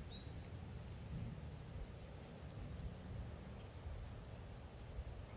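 Crickets chirring in a steady high-pitched drone over a faint low rumble.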